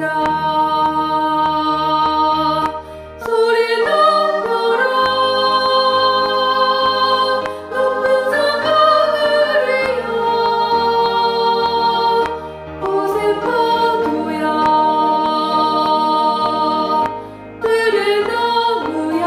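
Choir singing a hymn anthem in Korean, the soprano part to the fore, over piano accompaniment; long held notes in phrases a few seconds long, with short breaks for breath about every four to five seconds.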